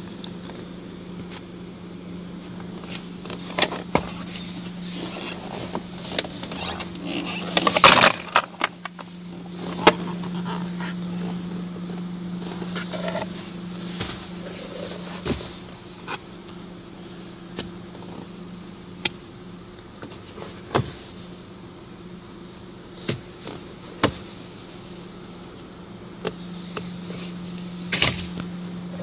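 Scattered plastic clicks and knocks from a car's heater blower motor and its housing being worked loose and handled, with a burst of rattling about eight seconds in. A steady low hum runs underneath.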